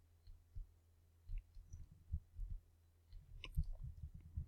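Faint computer mouse clicks and soft low thumps over a low steady hum.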